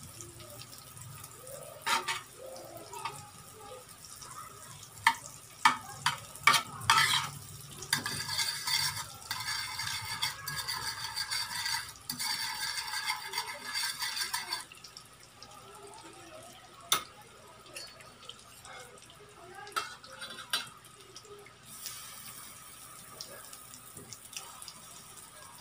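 A fork stirring melting butter in a nonstick frying pan: sharp clinks of the fork on the pan a few times early, then several seconds of rapid scraping strokes over a low sizzle, easing to a quieter sizzle with a few single taps.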